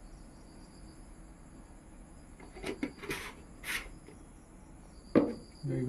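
Insects chirping steadily at high pitch, with a few short noises about three seconds in and a sharp knock about five seconds in.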